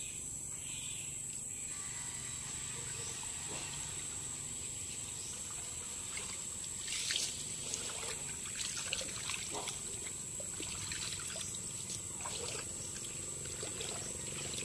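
Shallow muddy pond water splashing and trickling as hands rummage through it, with a cluster of small splashes from about seven seconds in. A steady high drone of insects runs underneath.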